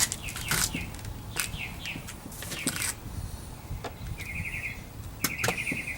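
Scattered sharp plastic clicks and rattles as the door panel and the power window switch's wiring harness connector are worked loose. From about four seconds in, a bird gives two short, rapid trills.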